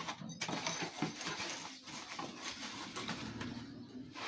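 Rustling and crinkling of packaging, with light irregular clicks and knocks, as a pot from a new cookware set is unwrapped and handled.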